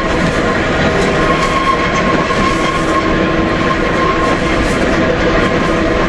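Manx Electric Railway tram car running along the track: a steady rumble of wheels on rail with a faint steady squeal, from the wheel flanges rubbing the rail on a tight bend.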